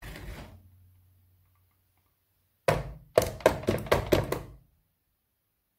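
Wire beaters of an electric hand mixer knocked against the rim of a plastic mixing bowl to shake off batter: a quick run of about six sharp knocks. Before them, a brief low hum dies away.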